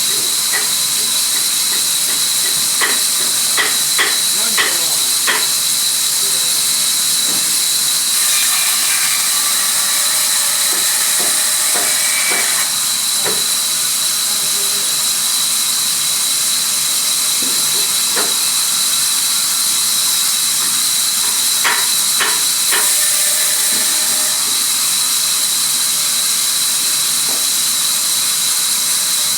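Sawmill machinery running with a steady loud hiss and a high whine, broken by scattered knocks and clacks, in a cluster a few seconds in and again past the twenty-second mark.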